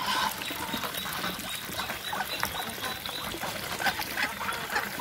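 Muscovy ducks feeding together at a trough: a steady clatter of many short clicks and wet dabbling as their bills work through the feed.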